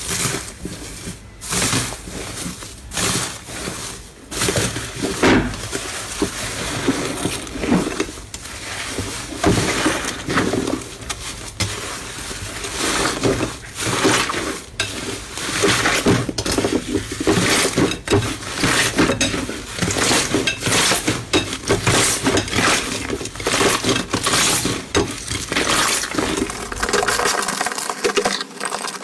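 Slime being pressed and squeezed by hand, giving a dense, irregular run of crackling clicks and pops.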